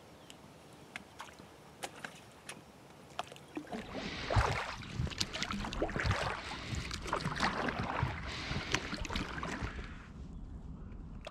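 Water splashing and churning around a small inflatable boat as it gets under way, starting about four seconds in and easing off near the end, with occasional knocks. Before that, a few faint clicks over quiet.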